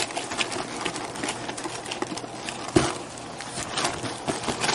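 Dry white cake mix pouring from its cardboard box into a plastic-lined slow cooker: a dense run of soft rustles and crackles, with one louder thump a little under three seconds in.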